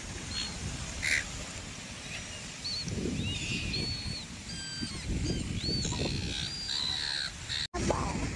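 A flock of silver gulls calling: a rapid string of short, high squawks that starts a few seconds in. Under them runs a low rumble of wind and surf.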